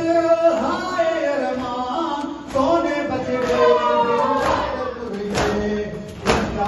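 Men chanting a noha, a Shia lament, in a sung melody. In the second half come a few sharp slaps of matam, hands striking chests, the strongest about a second apart near the end.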